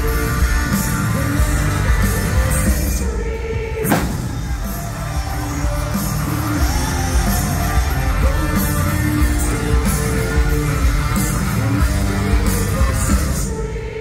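Live rock band playing through a concert sound system, heard from among the crowd: a lead singer over electric guitars, bass and drums, with a sharp hit about four seconds in. The music drops in level near the end.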